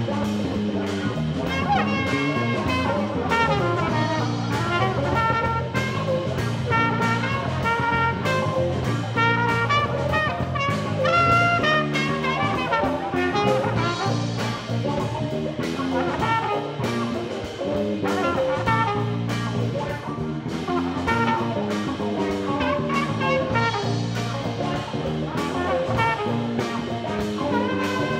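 Live band playing: a flugelhorn playing a melody over electric guitars, electric bass and a drum kit keeping a steady beat.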